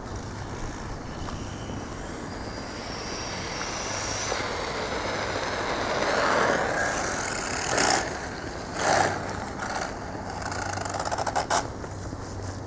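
Electric RC truggy's sensored brushless motor whining as it drives, its thin high pitch gliding up with throttle, over the rush of its tyres on asphalt. About two-thirds of the way in come two short louder bursts.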